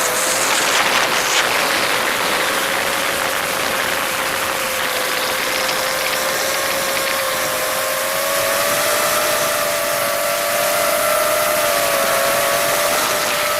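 FPV drone's electric motors and propellers running with a steady whine whose pitch drifts slightly up and down as the throttle changes, over a rush of air noise that swells briefly in the first couple of seconds.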